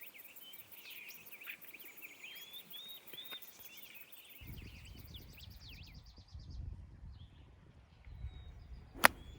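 Songbirds singing with short repeated chirps, then a fast buzzing trill, while wind rumbles on the microphone from about halfway. A single sharp knock near the end is the loudest sound.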